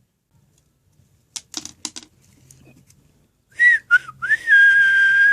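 A person whistling: a few short notes, then one long held note that drops in pitch at the end. A few faint clicks come just before.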